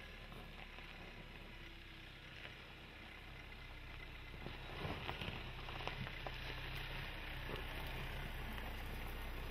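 Isuzu D-Max's 1.9-litre common-rail diesel engine running low and steady as the pickup crawls slowly, with loose gravel and stones crackling and crunching under the tyres. The crunching starts about halfway through and grows louder.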